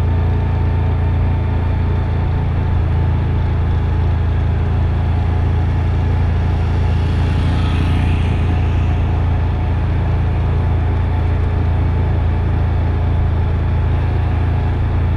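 Engine of a slow-moving ATV or side-by-side running steadily, a constant low drone, with a brief rise of hiss about eight seconds in.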